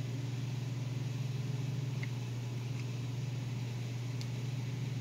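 Steady low machine hum, with a few faint small clicks as the cover is fitted back onto the electric AC compressor's terminal box.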